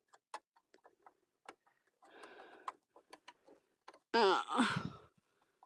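Irregular small clicks and taps from handling and refitting sewing machine parts. About four seconds in comes a short, loud vocal sound with a falling pitch.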